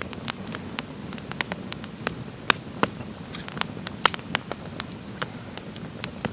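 Wood campfire burning, crackling with irregular sharp pops, several a second, over a low steady rush.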